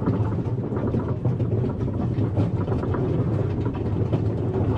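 A steady low mechanical rumble with continuous rattling.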